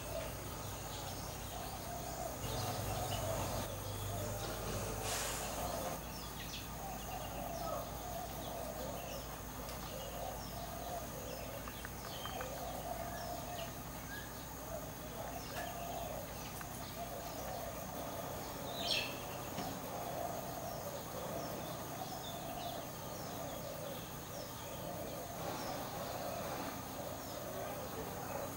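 Outdoor background noise with scattered short bird chirps over a steady high-pitched drone, with one louder chirp about two-thirds of the way through.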